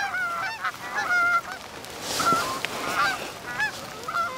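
A flock of geese honking, many short calls overlapping, several a second.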